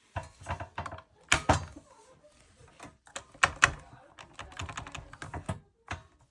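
Irregular plastic clicks and knocks of a fire alarm manual call point being handled, as its cover and push button are worked to reset it; the loudest knocks come about a second and a half in and about three and a half seconds in.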